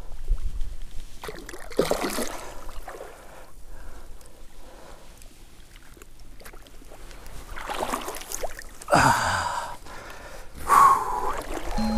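Splashing in shallow water as a hooked common carp is scooped into a landing net, with a few loud, sharp breaths and gasps from the angler; the bursts come about two seconds in and again near the end.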